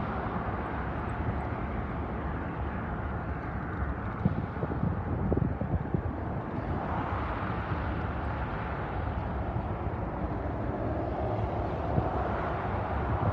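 Steady low rumble of vehicle noise, swelling a little in the middle pitches about seven seconds in and again near the end.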